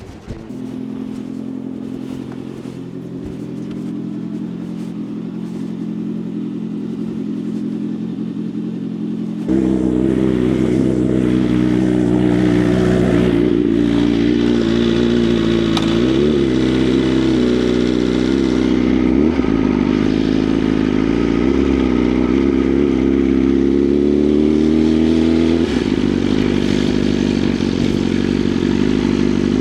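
BMW S1000RR inline-four engine starting and idling steadily. About ten seconds in it turns suddenly louder and fuller, and from then on its pitch rises and falls repeatedly with light blips of the throttle.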